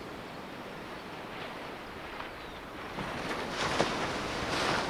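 Surf washing on the beach with wind on the microphone, a steady rush that swells louder about three seconds in.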